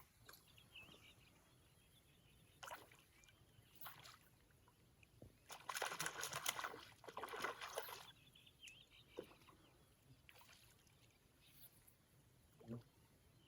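Water splashing and sloshing, faint at first, with a louder burst of splashing lasting about two seconds around the middle.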